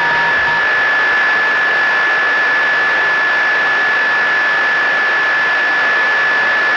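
Steady radio static hiss with a constant high-pitched tone through it, from an open voice communications channel.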